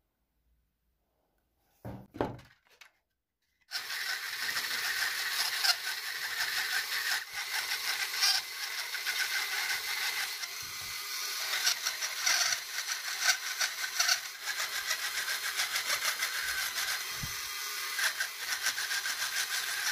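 Dremel rotary tool with a small cutter bit carving walnut wood: a steady high whine with a gritty cutting noise that rises and falls as the bit bites the wood. A few brief knocks come about two seconds in, and the tool starts about four seconds in.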